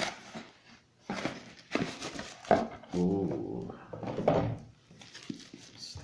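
Rustling and knocks of a cardboard box and plastic-wrapped packaging being handled during unboxing, with a short whine-like vocal sound about three seconds in and a briefer one a second later.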